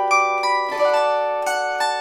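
Gusli plucked in a slow, unaccompanied folk melody: single notes struck about every third of a second, each ringing on and overlapping the next, over a lower note held throughout.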